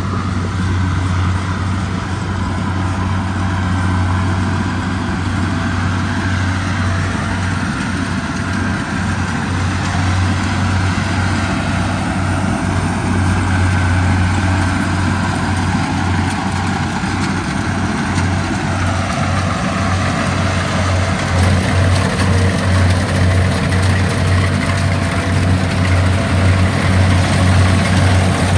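Rice combine harvester engine running steadily with a deep hum, growing a little louder about three-quarters of the way through.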